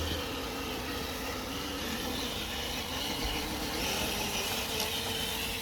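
Traxxas TRX-4 Sport RC crawler's electric motor and geared drivetrain whining steadily as it drives.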